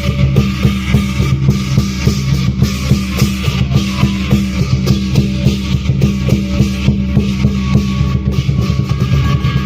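Lion dance percussion, drums with cymbals and gong, beating a steady, fast, even rhythm.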